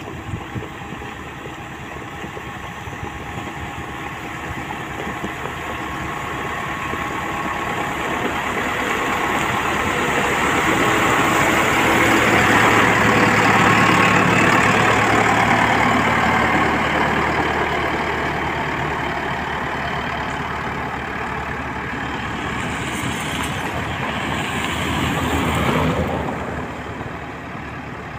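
A motor grader's diesel engine running as the machine works gravel past the camera, with gravel grinding under the tyres and blade. It grows louder to a peak about halfway through, then fades. A brief swell near the end cuts off suddenly.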